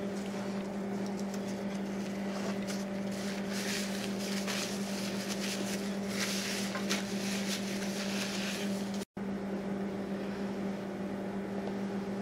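Paper napkin rustling and crinkling as hands are wiped, over a steady low hum in the room. The sound cuts out for an instant about nine seconds in.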